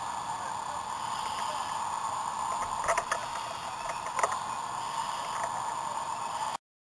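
Steady noisy fireground background from a helmet-mounted camera, with a few sharp knocks about three and four seconds in. The sound cuts off suddenly near the end.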